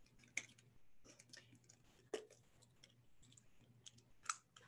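Near silence with a few faint, sharp clicks and small handling noises over a faint low hum.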